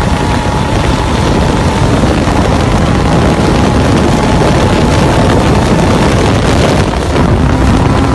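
Off-road vehicle's engine running steadily at speed, with wind rushing over the microphone.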